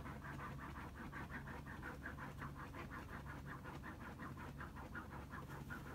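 Shiba Inu digging at a fabric floor cushion with its front paws: a faint, quick, even scratching at about five strokes a second.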